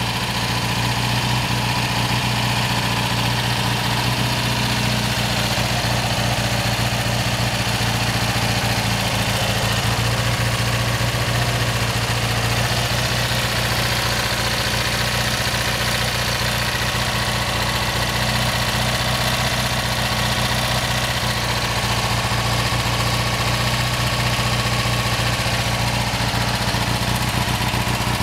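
BMW R60/5's air-cooled flat-twin engine idling steadily, sounding good and strong.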